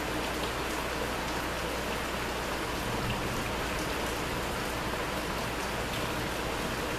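Steady rain falling, an even hiss with no thunder.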